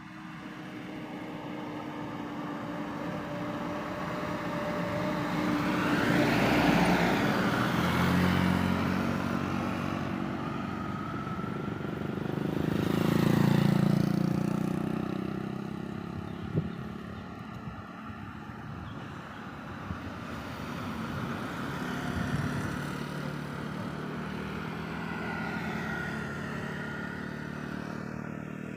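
Heavy vehicles driving past on a road, with engines running steadily under tyre and road noise. Two loud passes swell and fade, one about six seconds in and one about thirteen seconds in.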